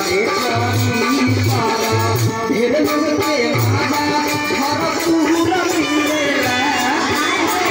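Loud live stage music through a PA: a wavering melody over a shaker rhythm, with deep drum beats in the first few seconds.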